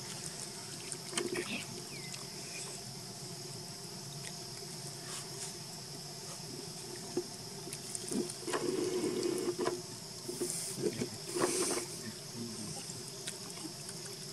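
Steady high-pitched drone of insects such as crickets or cicadas, with several short bursts of rustling and knocking noise in the middle.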